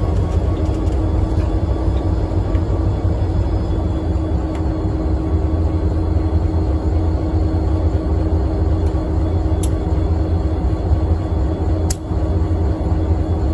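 Diesel freight locomotives at a grade crossing, their engines running in a steady heavy low rumble, with a couple of sharp metallic clicks about ten and twelve seconds in.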